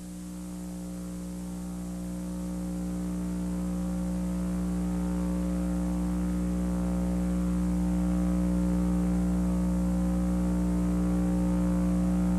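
Steady electrical mains hum at one fixed pitch, with its overtones, slowly growing louder.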